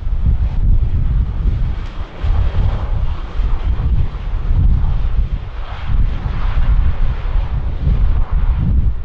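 Jet airliner's engines, an even rushing noise that swells about halfway through, over a gusty wind rumble on the microphone.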